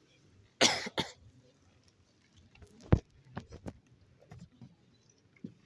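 A person coughing twice close to the phone's microphone, then a sharp knock and a few smaller knocks from the phone being handled.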